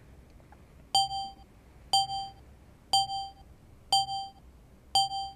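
Teethan dental occlusion software sounding a short electronic ding once a second, five times, counting off the seconds of a timed clench recording.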